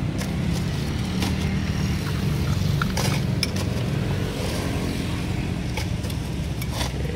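Steady low engine hum, with a few light clinks of a metal spoon against a glass as a drink is stirred and poured.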